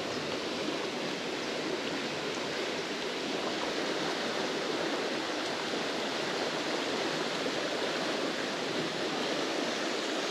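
Small rocky creek running steadily over its stones.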